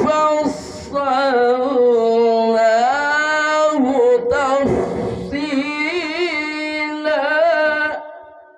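A man reciting the Quran in the melodic tajweed style, drawing out long ornamented held notes with wavering pitch. The chant breaks briefly about half a second in and again near the middle, and stops just before the end.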